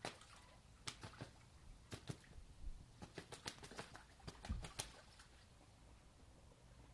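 Faint, irregular splashes and slaps of water as two mallard drakes scuffle on the surface, thinning out after about five seconds.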